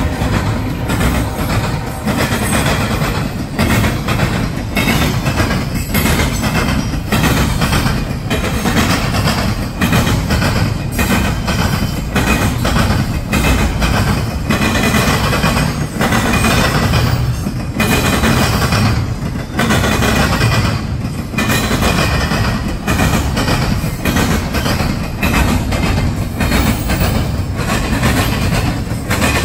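Double-stack intermodal container train rolling past at close range: a steady rumble of wheels on rail, with repeated clacks as the wheel sets pass.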